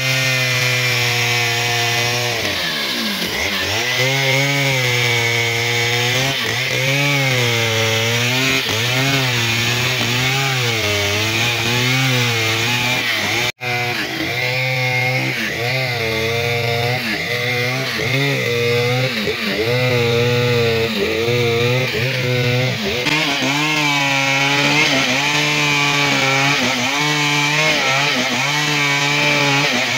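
Stihl 051 two-stroke chainsaw running at full throttle while ripping a log lengthwise, its engine pitch swinging up and down as the chain loads and frees in the cut. The sound drops out for an instant about halfway through.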